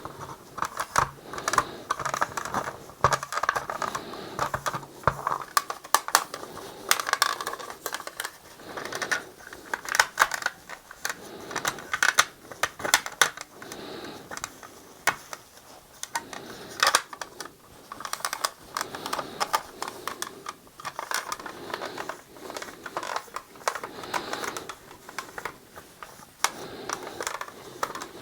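Hard plastic toy shuttle being handled and wiped with a cloth: irregular light clicks and taps of plastic with soft rubbing between them.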